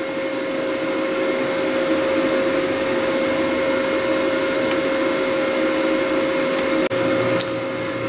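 Leica HistoCore Pearl tissue processor running its start-up internal self-test: a steady mechanical whir with a constant humming tone, with a brief dropout about seven seconds in.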